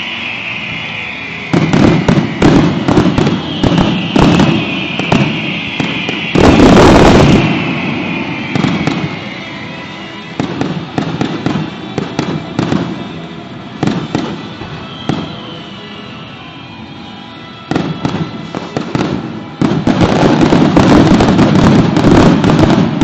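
Aerial fireworks going off in rapid volleys of sharp bangs and crackling, with one loud heavy burst about six seconds in. Near the end they build to a dense, continuous barrage.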